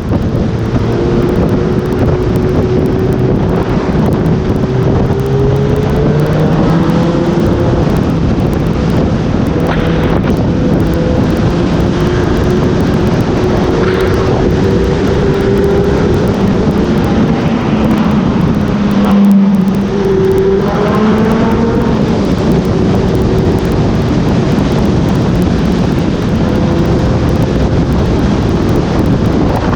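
Honda CB1000R's inline-four engine running while riding, its pitch rising and falling with the throttle, under heavy wind noise on the action camera's microphone. About two-thirds of the way through the sound drops out briefly, then surges to its loudest.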